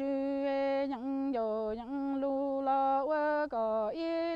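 A woman chanting Hmong kwv txhiaj (sung poetry, 'lug txaj') unaccompanied: long held notes on a nearly level pitch, broken by short dips and catches between phrases.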